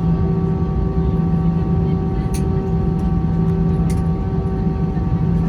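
Airbus A320 cabin noise on the ground after landing: a steady engine drone with several steady tones over a low rumble, and a couple of faint ticks about two and four seconds in.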